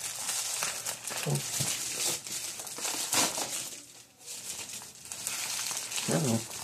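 Packaging crinkling and rustling as it is handled and unwrapped, an uneven crackle throughout.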